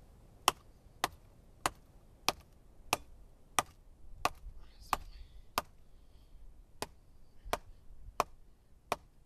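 Schrade SCHF10 survival knife chopping into wet wood: about thirteen sharp knocks at an even pace of roughly three every two seconds, with a brief pause a little past the middle.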